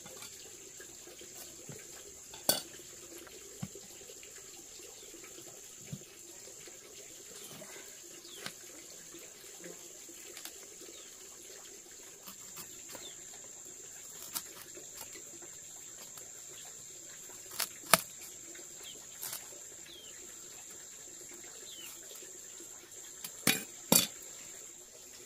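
Scattered sharp knocks and cracks from green banana hands being handled and broken off the bunch stalk and set down on a concrete floor, the loudest coming about two-thirds through and a close pair near the end, over a steady high hiss.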